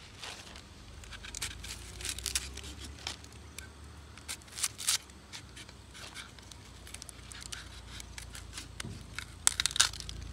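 Scattered short scraping and crackling sounds of vegetables being peeled and handled with a knife, with louder clusters a couple of times and near the end.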